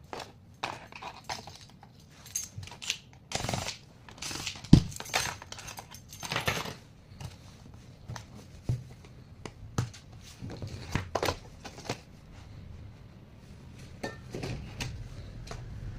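Plastic and metal laptop parts and small tools being handled during disassembly: scattered clicks and knocks with a few short scrapes, and one sharper knock about five seconds in.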